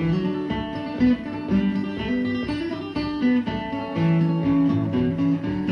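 Acoustic guitar music: a picked melody of short, separate notes over a moving line of bass notes.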